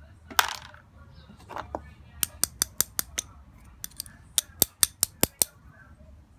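Small metal parts of a starter solenoid, its copper contacts, clinking together in the hand: a brief scrape about half a second in, then two quick runs of sharp metallic clicks, about five a second.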